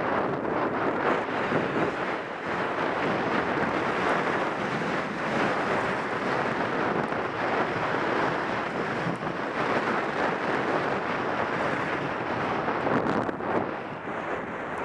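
Wind rushing over a helmet-mounted camera's microphone during a run down a ski slope, mixed with the hiss of sliding over packed snow. It eases briefly near the end as the run slows on the flat.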